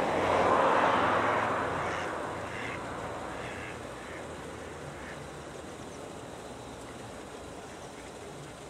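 Mallard ducks quacking a few times on a pond, over a broad rushing engine noise from a passing vehicle that peaks in the first second and then fades away.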